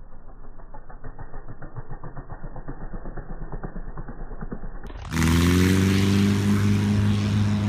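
An engine making a fly-by: a dull, pulsing drone grows slowly louder, then about five seconds in it turns suddenly much louder and fuller as it passes close. It holds a steady, deep hum whose pitch dips slightly at first.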